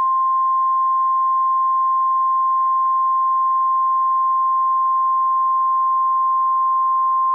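NOAA Weather Radio's 1050 Hz warning alarm tone: one steady, loud, unbroken tone over a faint radio hiss. The tone signals that a warning, here a severe thunderstorm warning, is about to be broadcast.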